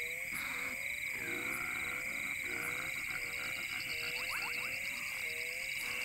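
Night ambience of a frog croaking in a regular rhythm, about twice a second, over a steady high insect trill.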